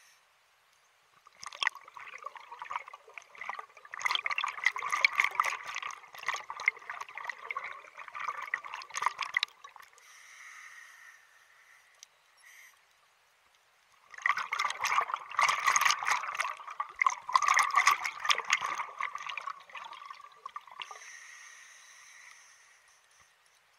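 Scuba diver breathing through a regulator underwater: two long exhalations of bubbles crackling and gurgling past the camera, about twelve seconds apart, each followed by a short hiss as air is drawn in through the regulator.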